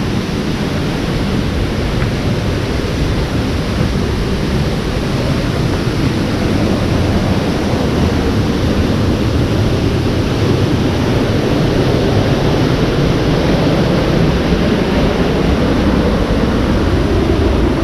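Loud, steady rush of fast-flowing water in a rain-swollen hill stream, a deep even noise that swells a little over the stretch.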